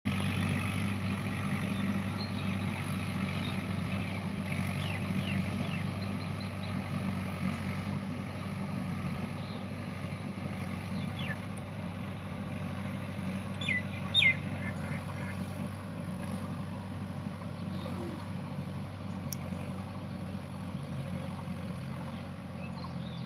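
Mahindra tractor's diesel engine running steadily under load while pulling a high-speed cultivator, heard from a distance and slowly fading as it moves away. A few short high bird chirps come through, the loudest about 14 seconds in.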